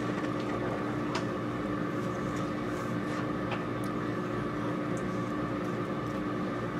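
Room tone: a steady mechanical hum with a constant low tone, broken by a few faint clicks and rustles.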